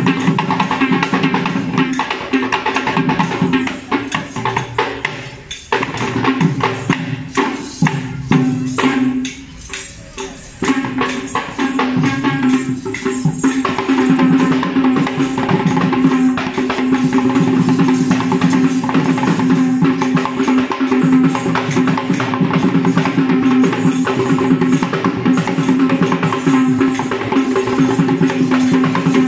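Live Sri Lankan Kandyan drumming: several barrel drums played by hand in a fast, dense rhythm, with metallic jingling and a steady held pitched note over it. The drumming thins out briefly about a third of the way in, then comes back full.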